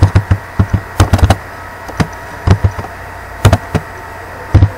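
Computer keyboard being typed on: loud key clicks in quick groups of a few strokes, with short pauses between the groups.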